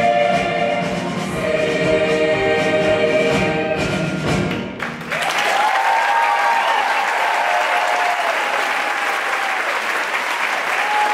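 A large mixed choir sings a held closing chord that cuts off sharply about five seconds in. The audience then breaks into sustained applause, with a few cheering voices.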